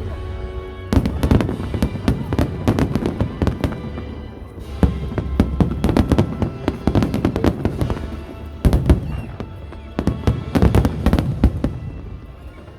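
Fireworks display: a rapid barrage of bangs and crackling that comes in waves, with the loudest flurries about a second in, in the middle and towards the end.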